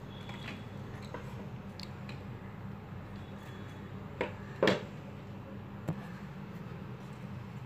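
Light handling of a small cardboard box: a few faint clicks and two sharper taps about four and a half seconds in, over a steady low hum.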